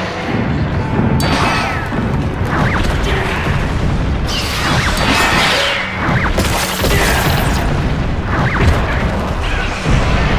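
Dramatic orchestral-style background music with heavy booms and crashes from a giant monster fight. The kaiju Neo Megas roars several times over it.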